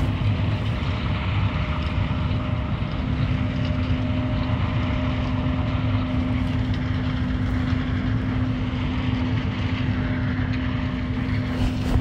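Machinery running steadily: a constant hum over a low rumble, with no change through the stretch.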